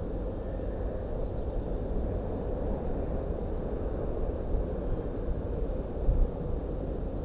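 Steady low wind rumble on the microphone of a camera set on the ground, with a few brief louder gusts in the second half; no clear bird calls stand out.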